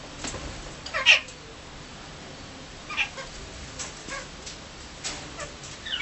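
Cockatiel giving a handful of short calls that fall in pitch while having its head scratched, the loudest about a second in.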